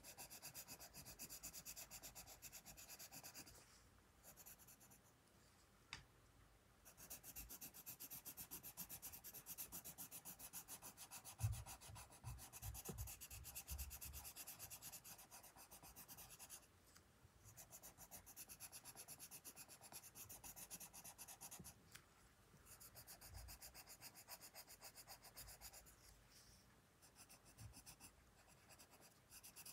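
Colored pencil shading on sketchbook paper: quick back-and-forth scratchy strokes, stopping now and then for a second or two. A few soft low thumps about twelve seconds in.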